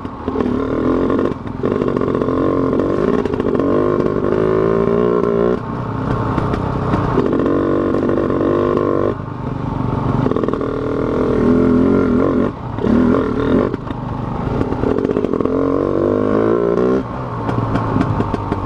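KTM Freeride dirt bike's engine under throttle on a trail, rising in pitch in about four pulls of a few seconds each and dropping back briefly between them as the throttle is rolled off and on.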